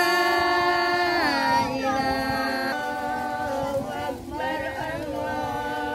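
A singing voice holding long, steady notes in a slow, chant-like melody, stepping down in pitch about a second in and again near the middle.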